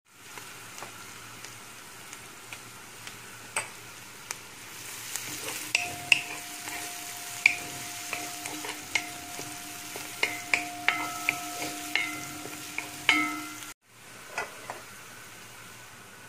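Sliced onions sizzling in hot oil in a large metal pot, stirred with a wooden spatula that clicks and knocks against the pot again and again.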